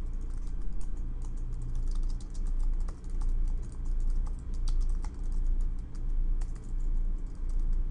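Typing on a computer keyboard: a quick, irregular run of key clicks, over a steady low background hum.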